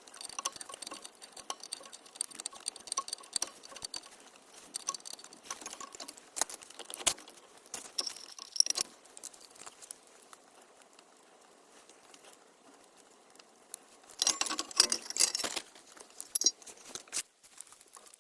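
Scattered small clicks and taps of hand work on small parts, with a short loud burst of scraping or rustling about two-thirds of the way through.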